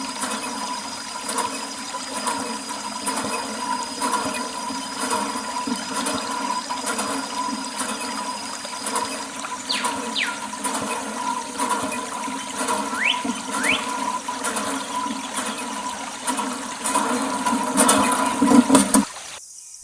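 Water running steadily, as in washing down a tractor, stopping abruptly near the end.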